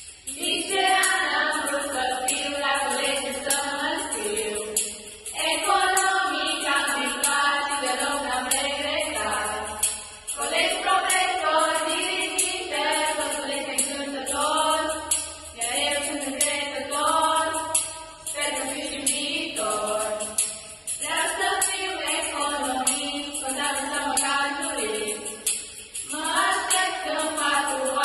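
A group of teenage voices singing a song together, in phrases of about five seconds, accompanied by a tambourine jingling in a steady beat.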